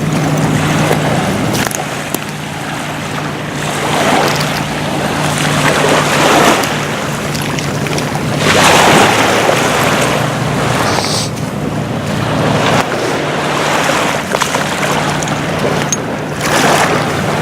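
Small waves washing in over the glass- and debris-strewn shore of Dead Horse Bay, surging and falling back every few seconds, with a few faint high clinks. A steady low hum runs underneath.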